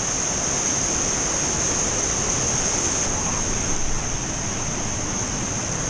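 Waterfall on Havasu Creek, a steady rushing roar of water pouring over the rocks, with a steady high-pitched hiss above it.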